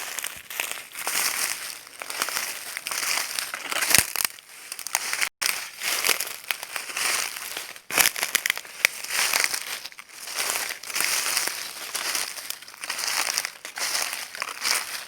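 Footsteps crunching through dry leaves, a continuous crackling that swells with each step, about one step a second. The sound cuts out for an instant about a third of the way through.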